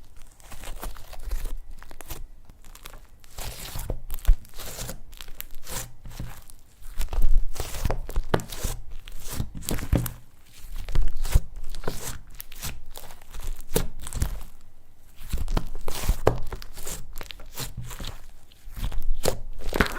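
Slime being squeezed and stretched by hand, making a steady run of irregular crackling, popping and squishing sounds.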